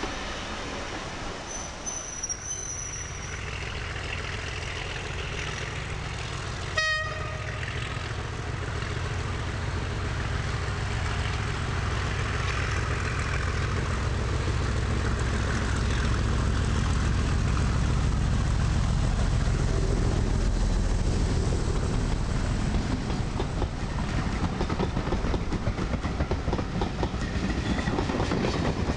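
Diesel locomotive hauling coaches: the engine's low rumble grows steadily louder as it approaches and passes, then the coaches roll by. A single very short horn toot sounds about seven seconds in.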